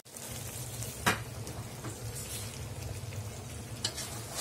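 Chicken pieces sizzling and bubbling in spiced oil and their own juices in an aluminium pot as the meat is braised down, with one sharp knock of a stirring spoon against the pot about a second in.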